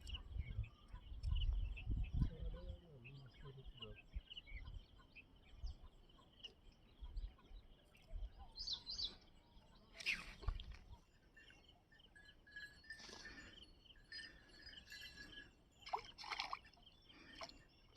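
Outdoor ambience with birds chirping. There are low rumbles in the first few seconds, and a short, louder noise breaks in about ten seconds in.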